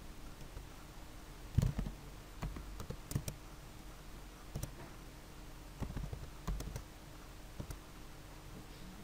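Computer keyboard keystrokes and mouse clicks in irregular clusters of short taps, over a faint steady background hum.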